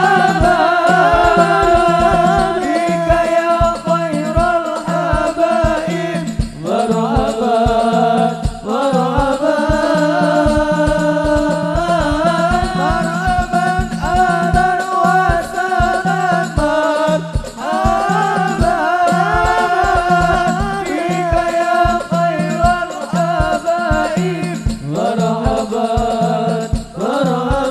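Arabic sholawat sung in long, ornamented held lines over hadroh frame drums (rebana) beating a steady rhythm.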